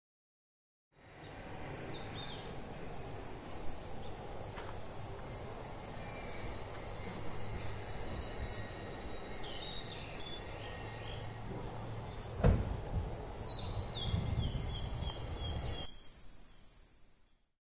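A steady, high-pitched insect chorus, with a few short falling bird chirps now and then and one dull thump about twelve seconds in. It fades in after about a second and fades out near the end.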